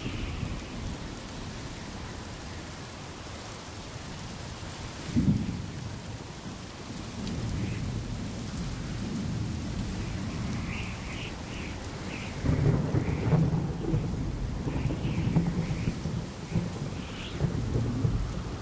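Passing prairie thunderstorm: steady rain with rolling thunder. A sharp thunderclap comes about five seconds in, and the thunder rumbles louder and heavier from about two-thirds of the way through.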